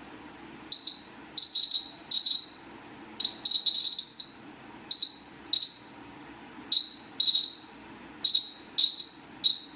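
Buzzer of a homemade earthquake alarm model beeping: about fifteen short, high-pitched beeps at uneven intervals, each starting sharply and tailing off quickly, as the alarm circuit is triggered on and off.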